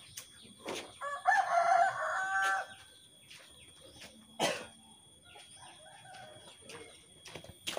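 A rooster crowing once, starting about a second in and lasting under two seconds. A single sharp knock follows a little after the middle.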